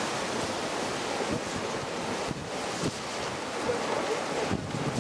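Wind blowing across an outdoor camera microphone: a steady rushing noise with uneven low rumbling gusts, mixed with the wash of the sea.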